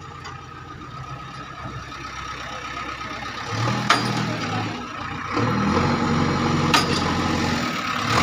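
Heavy diesel machine engine running, growing louder about halfway through as it picks up, with a couple of sharp knocks over it.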